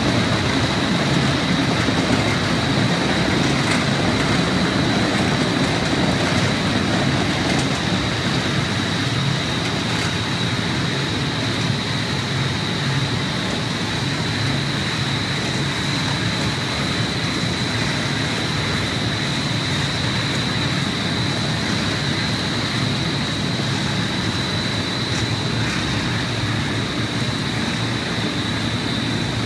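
Innovatech P3200 four-headed planetary floor grinder running steadily under load, its metal-bond diamonds grinding off a mortar bed left from ceramic tile, with a steady high whine over the grinding noise.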